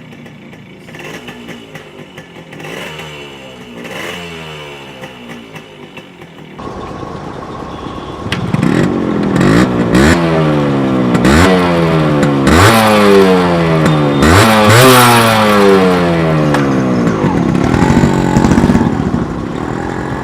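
Yamaha RX100's two-stroke single-cylinder engine being revved, its exhaust note rising and falling repeatedly. About a third of the way in it becomes much louder, with a run of quick throttle blips, each shooting up in pitch and then falling away.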